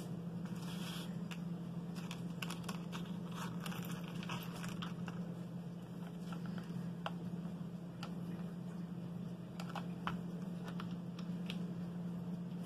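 Scattered light clicks and rustling of small craft pieces being handled and glued onto a paper plate, over a steady low hum.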